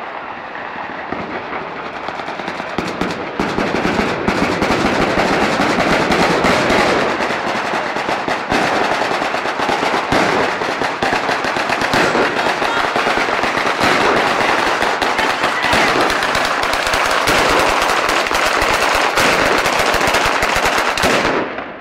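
A long string of ground-laid firecrackers going off in a rapid, unbroken crackle like machine-gun fire. It grows denser and louder about three seconds in and stops abruptly near the end.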